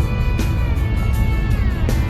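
Background music with a steady beat, a strong bass and sliding notes.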